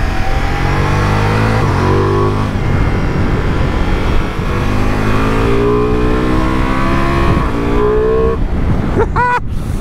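Ducati Multistrada V4 Rally's V4 engine pulling hard under acceleration, its note climbing in two long rises and dropping back at gear changes, over steady wind rush.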